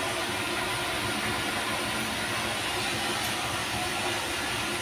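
Egg omelette frying in oil in a wok: a steady sizzle.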